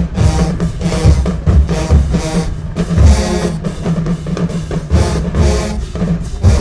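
Marching band playing loudly: a pounding bass-drum and snare pulse under sustained brass chords, with cymbal crashes on the beats.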